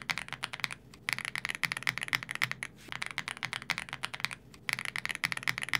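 Fast typing on DAREU EK87PRO mechanical keyboards with double-shot PBT keycaps, in four quick runs of keystrokes separated by short pauses.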